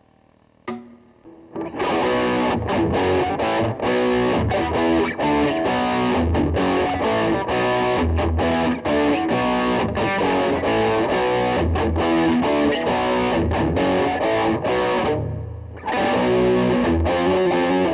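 Electric guitar, a copy of a Gibson Les Paul Custom, played through heavy distortion. One struck note sounds just under a second in, then a fast picked riff starts at about two seconds. The riff breaks off briefly near the end and resumes.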